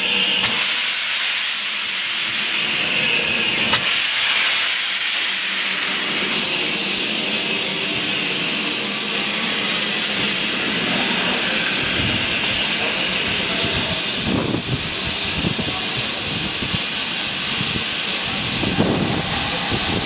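GWR Modified Hall 4-6-0 steam locomotive No. 6990 venting steam with a steady, loud hiss.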